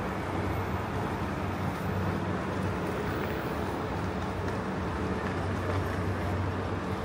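Steady city traffic noise with a constant low engine hum.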